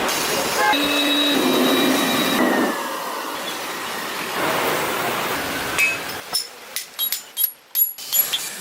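A steady rushing noise, then from about six seconds in a series of sharp metallic clinks and strikes of blacksmithing work.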